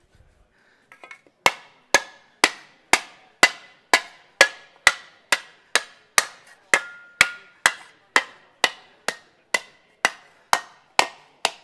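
A red mallet beats a sheet of aluminium against a block in a steady rhythm of about two blows a second, starting about a second and a half in. Each blow rings briefly as the panel is hand-shaped.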